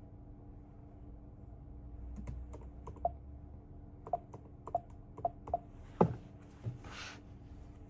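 Keys on a MacBook Pro laptop keyboard pressed one at a time: about seven separate clicks at an uneven pace, the loudest about six seconds in, followed by a short rustle.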